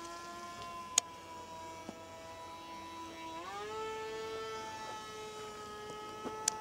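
Radio-controlled model airplane's motor and propeller whining steadily, the pitch easing slightly and then rising quickly about three and a half seconds in as the throttle is opened. A sharp click about a second in and another near the end.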